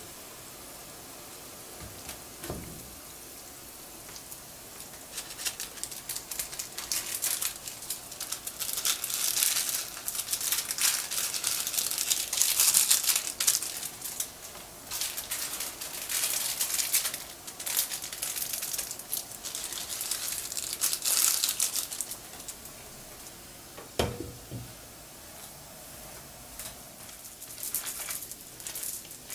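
Instant noodle blocks sitting in a frying pan of steaming hot water, with a steady faint hiss. From about five seconds in there are long stretches of loud crinkling of plastic packets, lasting until about twenty-two seconds in; a single sharp knock with a short ring comes about twenty-four seconds in, and a plastic spatula starts stirring the noodles in the pan near the end.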